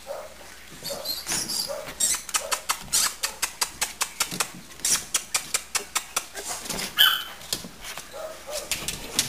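Bull terrier puppies whimpering faintly, over quick clicking several times a second from their claws on the hard plastic of a wading pool. One louder high-pitched squeak comes about two-thirds of the way through.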